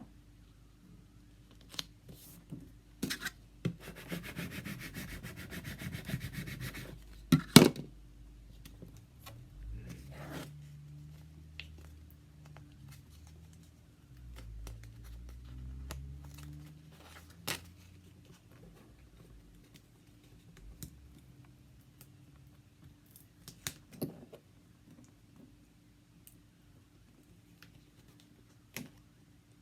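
Hands rubbing and pressing stickers onto a tumbler, with scattered clicks and knocks. A stretch of quick rubbing strokes runs from about four to seven seconds in, and a sharp knock just after is the loudest sound.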